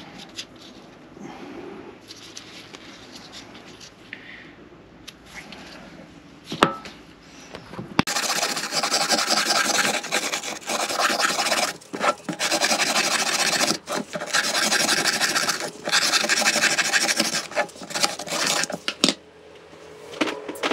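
Wire brush scrubbing the metal cover plate of a raw water pump on a wooden board, cleaning off the old paper gasket. After faint handling and a single knock, hard rasping back-and-forth strokes start about eight seconds in and go on in runs with brief pauses until near the end.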